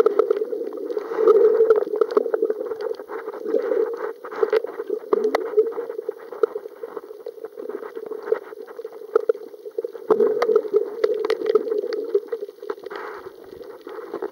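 Muffled underwater water noise: uneven gurgling and sloshing with many scattered sharp clicks, and a few short falling gurgles.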